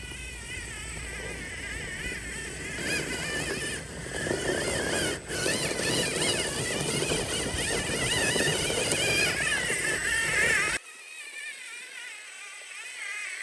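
The 1/10 scale RC4WD Miller Motorsports rock racer's electric motor and gear drivetrain whining, the pitch rising and falling with the throttle as it crawls over rock. About eleven seconds in the sound drops suddenly to a quieter, thinner whine.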